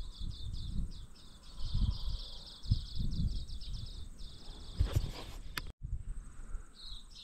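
Insect chirping in a fast, high run of pulses that stops about four seconds in and returns briefly near the end, over low gusty wind rumble on the microphone. A couple of sharp clicks come about five seconds in.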